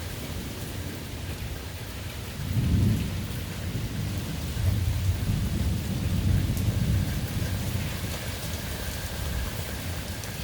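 Steady rain falling, with a roll of thunder: a low rumble that breaks in sharply about two and a half seconds in, rolls on for several seconds and fades away.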